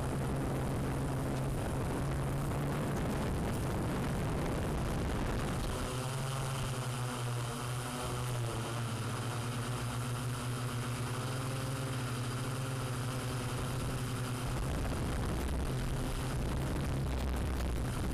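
Multirotor camera drone's propellers humming steadily, with several wavering whining tones over the hum from about six seconds in; a few seconds before the end the whine fades and the hum drops lower.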